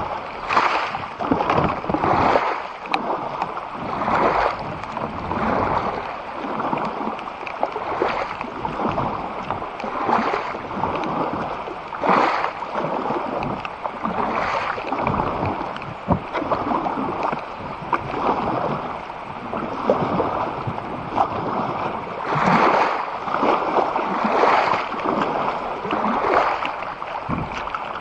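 Kayak paddle strokes splashing in the river water, about one a second in a steady rhythm.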